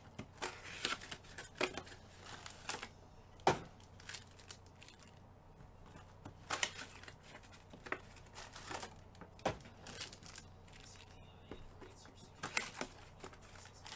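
Foil trading-card pack wrappers being torn and crinkled, with irregular sharp crackles and taps from the handling.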